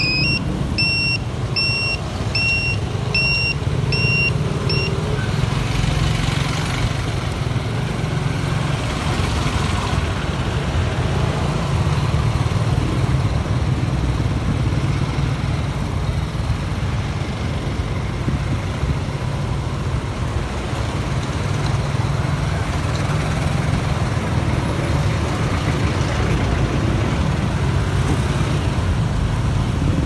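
Motorcycle riding through slow city traffic: a steady low rumble of engine and wind on the microphone, with road and traffic noise around it. About seven short, evenly spaced high beeps sound in the first five seconds.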